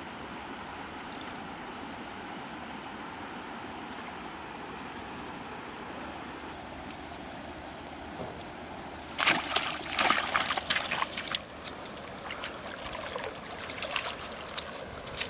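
A hooked catfish splashing and thrashing in shallow river water as it is hauled to the bank on a line. It begins about nine seconds in with a burst of loud splashes, then trails off into smaller splashes. Before that there is only a steady outdoor hiss.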